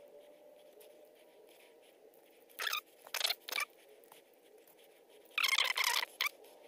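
Fingertips scraping and pinching chunky glitter off paper: three short scratchy rasps, then a longer one about five and a half seconds in, over a faint steady hum.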